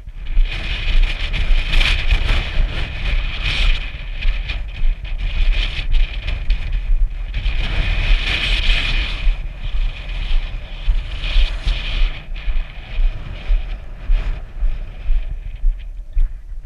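Wind buffeting the camera microphone, a heavy rumble under a hiss, with regular pulses a little more than once a second.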